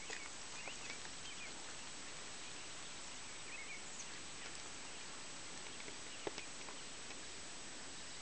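Quiet open-pasture ambience: a steady hiss with a few faint, short bird chirps in the first second and again around four seconds in, and one sharp click a little after six seconds.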